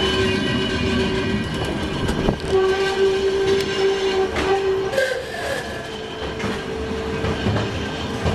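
Volk's Electric Railway car running on its track, with a steady whine over a low rumble and the odd sharp click of the wheels crossing rail joints and points.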